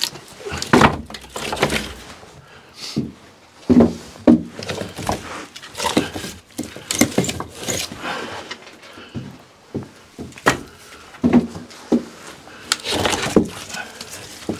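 Split firewood logs knocking and clattering as they are pulled from a pile and handled, a string of irregular wooden knocks and thuds in a small cellar room.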